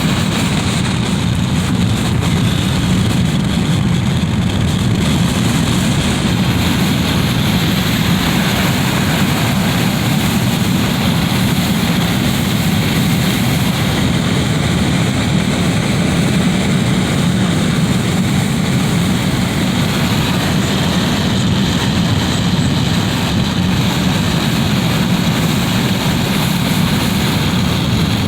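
Wind coming through a window: a steady, even rush, heaviest in the low end, with no distinct gusts or breaks.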